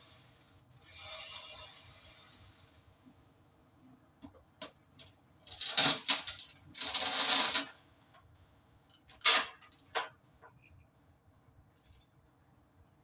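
Metal tools and parts clinking and rattling during clutch work on a truck, with a steady hiss for the first few seconds and two louder rattling bursts near the middle.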